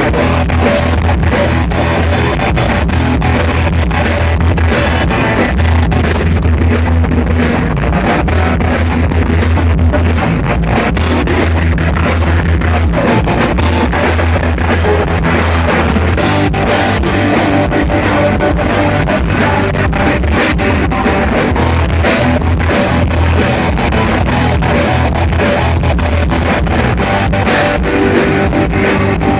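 Rock band playing loudly through a stage sound system during a soundcheck: electric guitar, bass and drum kit.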